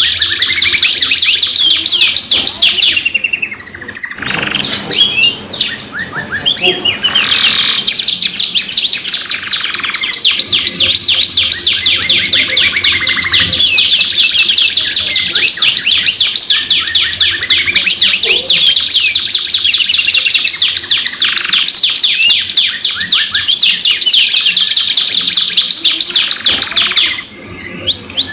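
Domestic canaries singing long, continuous song of fast rolling trills and chirps, with brief pauses a few seconds in and near the end.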